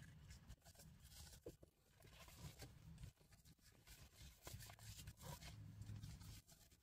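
Faint rustling and soft crinkling of paper pages and card being turned by hand in a handmade junk journal, over a low steady hum.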